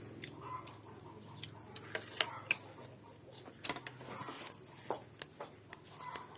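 Irregular light clicks and taps, a few seconds apart, over a low steady hum.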